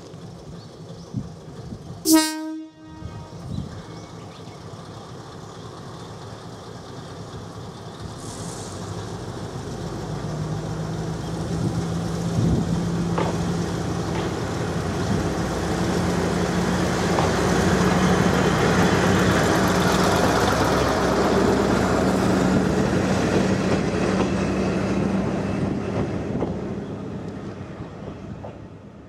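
Kominato Railway KiHa 200 diesel railcar sounding one short horn blast as it departs. Its diesel engine then works harder as the railcar pulls away, growing louder as it passes close by and fading near the end.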